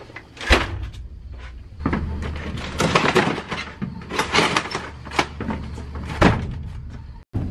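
Wirebound wooden bushel crates of green beans being set down and slid into place on a box truck's wooden floor: several knocks and scrapes, over a low steady hum.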